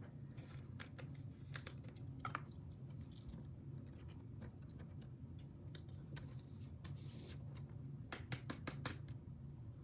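Faint clicks, taps and scrapes of trading cards and a hard plastic card holder being handled, over a low steady hum. The clicks come in loose clusters, thickest near the end.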